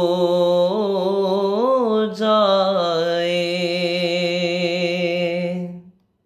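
A man's unaccompanied solo voice singing the long drawn-out closing notes of an Urdu devotional salam (naat). There is a melodic turn about a second in and a short break just after two seconds, then one long held note that fades out near the end.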